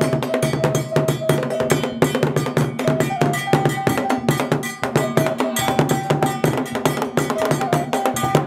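Ghanaian traditional drumming: large wooden drums beaten fast with curved sticks, over a metal bell struck in a dense, steady pattern.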